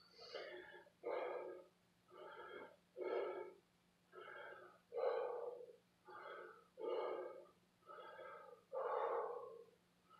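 A man breathing hard to recover from strenuous exercise: heavy breaths in and out, about one a second, louder and quieter breaths alternating.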